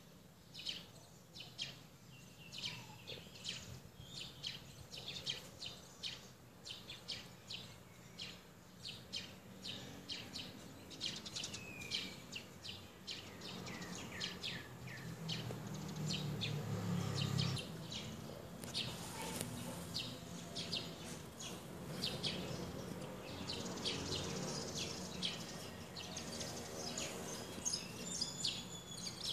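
Small birds chirping and calling over and over, quick high notes and short sweeps, over a steady low background noise. A low rumble swells for a few seconds about halfway through.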